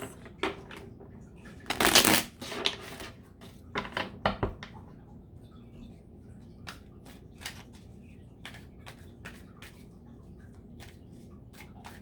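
Tarot cards being shuffled by hand: a loud riffle about two seconds in, a few sharp card slaps around four seconds, then scattered soft clicks and rustles of the cards.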